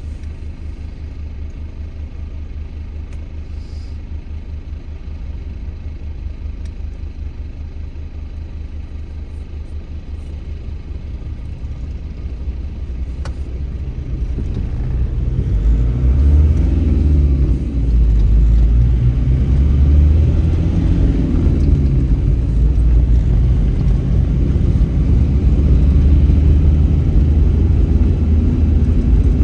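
A car driving, a steady low road and engine rumble that grows louder about halfway through.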